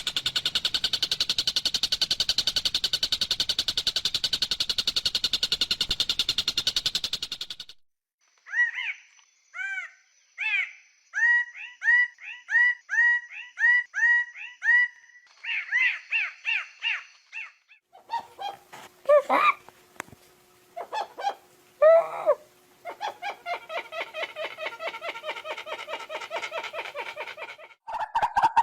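Three different songbirds sing one after another. First comes a fast, unbroken buzzing trill. After a short break there is a run of quick repeated arching whistles, then a third bird with a more varied, choppy song.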